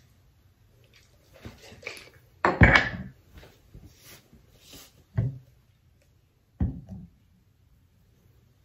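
Several short hissing bursts from a pump perfume spray bottle being sprayed, the loudest about two and a half seconds in, with two shorter bursts around five and six and a half seconds in.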